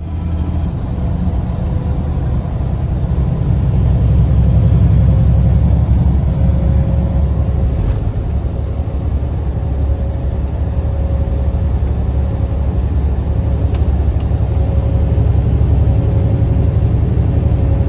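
Semi-truck engine and road noise while driving: a steady low rumble that swells over the first few seconds, then holds.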